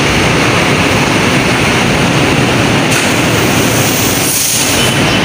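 LRT Line 1 light-rail train at a station platform, a loud steady rumble and hiss as it stands and opens its doors.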